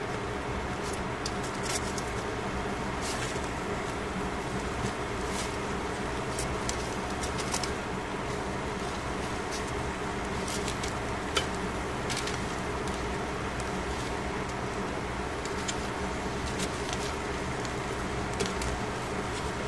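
Steady mechanical hum of a fan, with scattered sharp clicks and crackles from metal tongs on aluminium foil as pieces of fish are turned.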